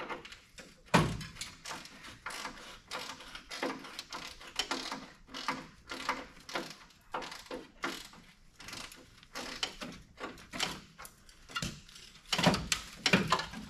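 Rusted steel dash frame clanking and scraping as it is worked loose and pulled on, still caught on its mounts: a run of irregular metal knocks and rattles, with a heavier clunk about a second in and several louder knocks near the end.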